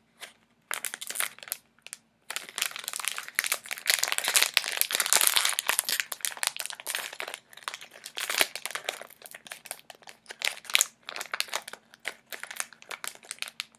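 A keyring's packaging bag crinkling and crackling irregularly as it is handled and pulled at to get it open. The crinkling is busiest a few seconds in and stays ragged and stop-start throughout.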